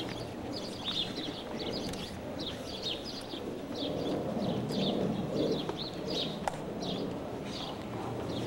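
Small birds chirping steadily, short high falling chirps two or three times a second, over a low murmur. One sharp click about two-thirds of the way through.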